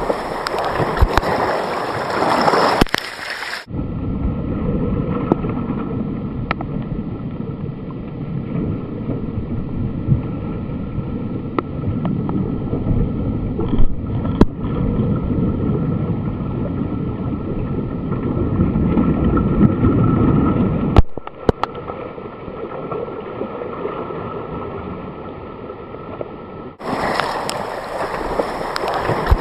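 Sea water churning and splashing close to the microphone, with wind noise. About four seconds in, the sound turns muffled and low for most of the stretch, with a few clicks. Near the end it opens out again into full splashing.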